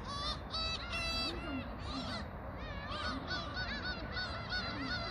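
A flock of waterbirds calling over one another, many short arched calls several a second, over a steady low rumble.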